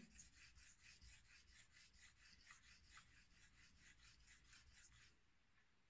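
Straight razor blade stroked in short, quick passes on a 4000-grit Naniwa Chemical whetstone: a faint, even rasp repeating about four times a second, stopping about five seconds in.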